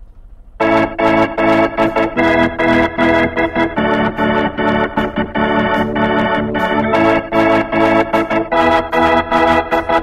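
Background music: an instrumental song intro with a keyboard, organ-like in tone, playing chords over a steady drum beat. It starts suddenly about half a second in.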